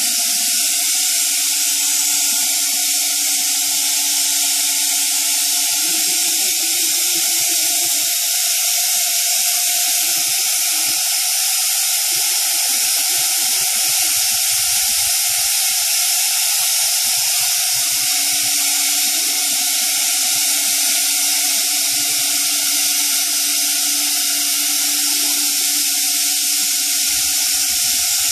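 Thermwood C67 five-axis CNC router running in its enclosure: a loud, steady hiss, with a low machine hum that drops away about eight seconds in and comes back about ten seconds later.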